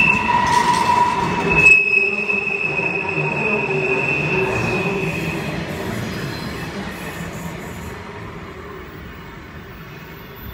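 Last wagons of a container freight train rolling past, steel wheels giving high steady squeals over a rumble, with the train running downhill under brakes. The squeal and rumble fade away over the last few seconds as the train moves off.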